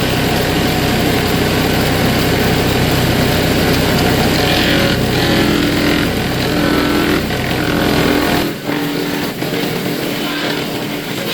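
Belt-driven wood chipper running under its gas engine, a loud steady drone with shifting pitched tones in the middle. About eight and a half seconds in, the deep low rumble drops out abruptly.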